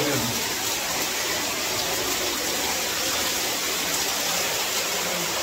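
Overhead shower spraying steadily, water pouring down onto a man's head and shoulders and splashing on the tiled floor.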